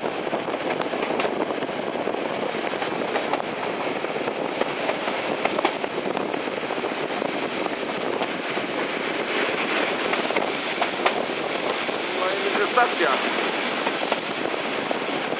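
Passenger train heard from inside the carriage, its wheels rolling on the rails with a steady rumble and scattered clicks over the rail joints. About ten seconds in, the noise grows louder and a high, steady wheel squeal starts and holds.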